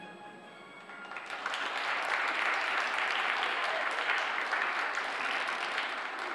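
Audience applauding, the clapping swelling about a second in as the backing music fades away.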